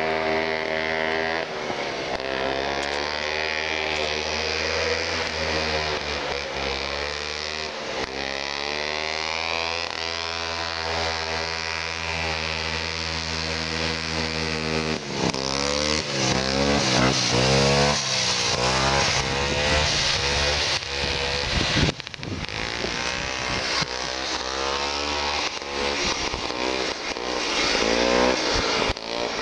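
Vintage Ski-Doo snowmobile's two-stroke engine running under way. It holds a fairly steady pitch at first, then revs up and down repeatedly from about halfway through.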